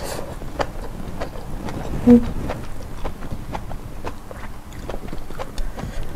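A person chewing a mouthful of rice and stir-fried water spinach, close to the microphone, with many small wet mouth clicks and smacks over a low steady rumble. About two seconds in there is a brief low hum, the loudest moment.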